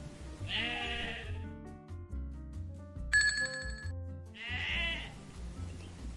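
Two wavering animal calls, one about half a second in and one about four and a half seconds in, with a short ringing tone between them, over background music.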